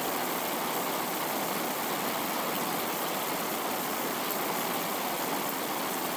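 A steady, even rushing noise with no tune and no clear pitch, starting suddenly out of silence: the sound laid under the channel's intro card.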